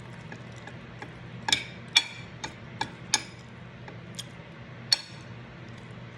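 Metal cutlery clinking and scraping against a plate during a meal: about seven irregular sharp clinks with a brief ring, most of them between about one and a half and five seconds in, over a steady low hum.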